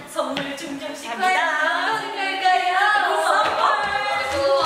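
Young women's voices singing a tune unaccompanied, with long, sliding sung notes.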